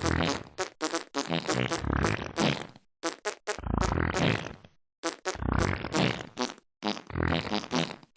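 Fart sounds pitched to musical notes and played as a melody, in quick phrases broken by short pauses.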